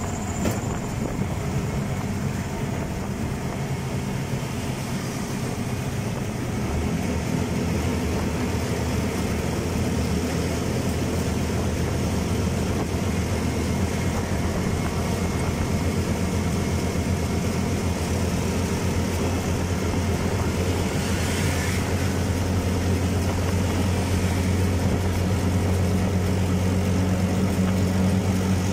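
A vehicle engine runs steadily on the move, with road and wind noise. The low engine hum grows stronger about a quarter of the way through and holds steady after that.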